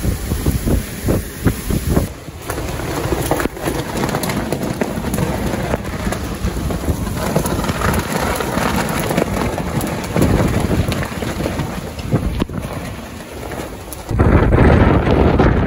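Hurricane eyewall wind and heavy rain, a steady rushing hiss. Strong gusts buffet the microphone in the first two seconds and again, louder, near the end.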